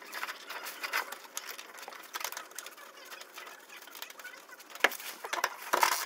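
Scattered small metal clicks and taps as a parking brake cable mounting bracket is fitted around the cable by hand, with a couple of sharper clicks near the end.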